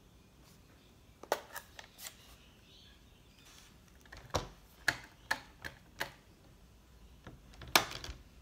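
A run of sharp plastic clicks and taps, about a dozen in irregular clusters, the loudest near the end: a Real Red Stampin' Pad's case being handled and the pad dabbed onto a stamp held in a Stamparatus stamping platform to ink it.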